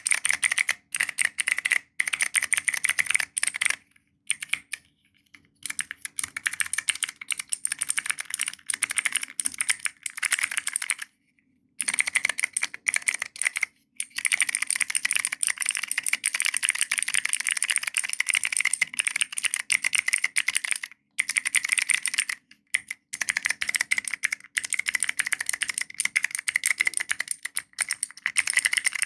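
Mechanical keyboard clicker fidget toy: its keys pressed in quick runs of clicky switch presses, with a few short pauses.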